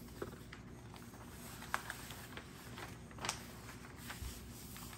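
Newspaper sheets rustling quietly as they are unfolded and spread across a table, with a few brief crinkles of paper.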